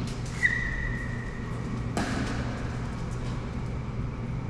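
Badminton hall ambience: a steady low hum with faint scattered ticks of play on the far courts. A thin high squeak holds for about a second and a half, and a single sharp knock comes about two seconds in.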